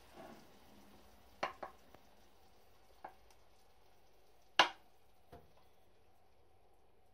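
A few sharp clinks of a kitchen utensil knocking against cookware: a quick pair about a second and a half in, a lighter one near three seconds, the loudest a little after four and a half seconds, and a faint one after it.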